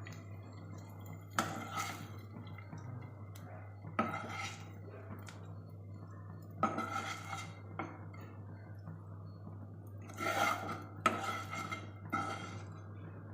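A utensil scraping and clinking against a frying pan as fried prawns are scooped out, about six separate scrapes with short pauses between, over a steady low hum.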